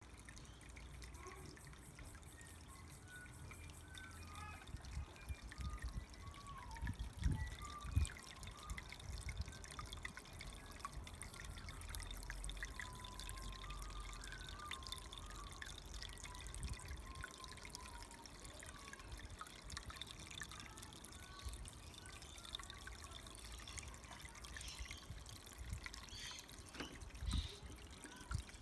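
Water from a small pond pump's outlet trickling and splashing steadily into a half wine-barrel goldfish pond.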